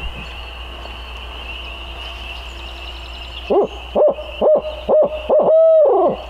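Barred owl hoots blown on an owl locator call: about six hoots starting some three and a half seconds in, the last one drawn out and falling at the end. The call is used to shock a roosted turkey gobbler into gobbling.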